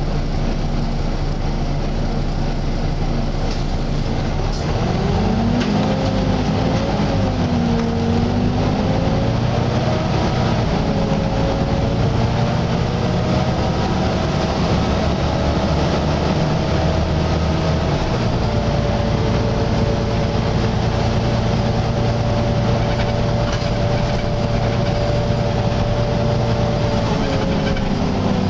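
Volvo B9TL bus under way with the whining hum of its engine cooling fan, known as the "hoover" sound, over the running noise. The whine rises about five seconds in, wavers for a few seconds, holds steady, then falls away near the end.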